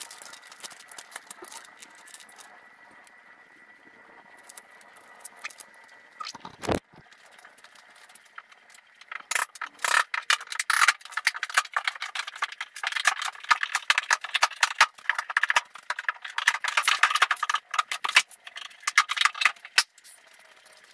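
Rapid, irregular clattering and rattling of wood and loose hardware while the lid of a wooden shipping crate is worked loose and taken off, starting about nine seconds in. A single dull thump comes a few seconds before.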